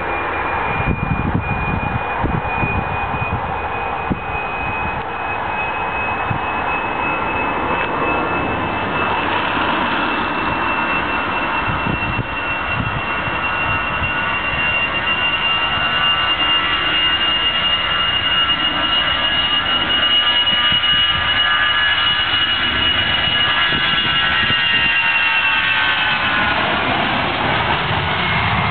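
Airbus A319's twin jet engines at takeoff power during the takeoff roll: a high whine over a rumble, growing louder and creeping up in pitch as the airliner approaches, then sliding down in pitch near the end as it passes.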